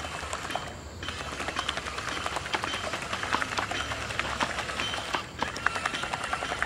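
A small DC motor turning a plastic-bottle paddle wheel that churns and slaps the water, giving a rapid, uneven patter of splashes over a low steady hum. The sound drops briefly about a second in and again about five seconds in.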